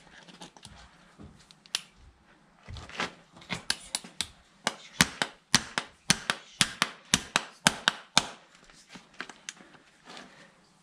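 Farrier's hammer tapping horseshoe nails into a steel shoe held in the hand: a run of sharp metallic taps, about three a second, loudest through the middle, with a few lighter taps before and after.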